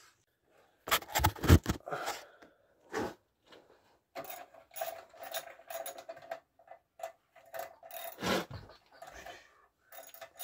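A few loud knocks and handling noises about a second in as the phone camera is moved. Then a ratchet wrench is worked in short, irregular strokes, scraping and clicking, on the bolts of the clutch pressure plate.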